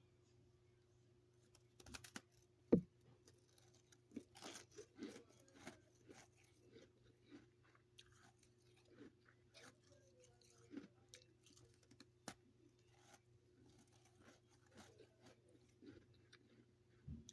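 Person chewing freezer frost, a run of irregular soft crunches and chews that starts about two seconds in, the loudest bite soon after.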